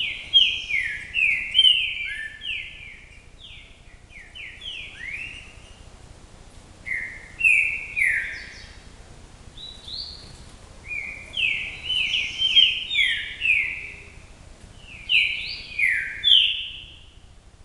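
A songbird singing in repeated bursts of quick, loud, downward-sliding whistled notes, with short pauses between phrases.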